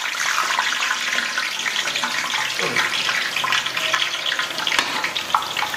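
Freshly pressed besan sev deep-frying in a large aluminium kadai of medium-hot oil: a steady, dense sizzle as the dough strands foam in the oil.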